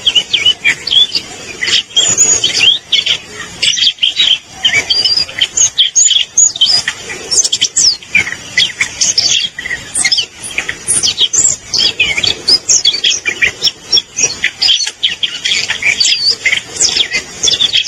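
Siberian rubythroat singing: a long, fast, varied warble of high whistles, chirps and quick slurred notes that runs on without a break.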